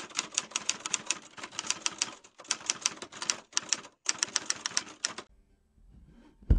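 Typewriter keys clacking in step with on-screen text being typed out, a sound effect: rapid sharp clicks, about five a second, in three runs with short breaks, stopping a little after five seconds in.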